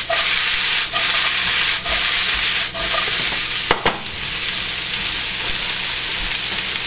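Chopped cabbage and onion sizzling steadily in hot bacon fat in a skillet while the pan is tossed: four short knocks about a second apart, the last the loudest, then the sizzle carries on by itself.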